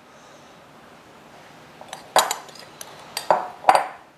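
A spoon knocking against a dish three times in the second half: short clinks that ring briefly.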